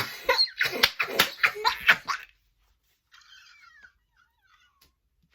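A girl laughing hard in quick bursts for about two seconds, then a fainter, higher trailing sound.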